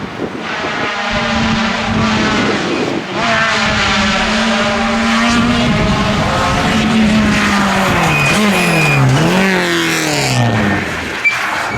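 Rally car engine held at high revs, then from about seven seconds in the revs fall in several steps with short rises between, as when downshifting and braking into a corner.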